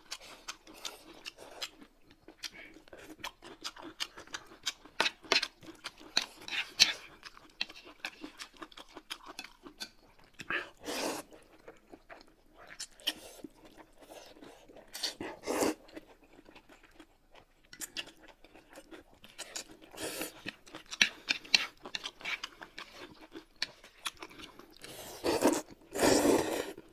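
Close-miked eating: steady chewing with wet smacks and clicks, broken by a few louder noodle slurps, the longest near the end.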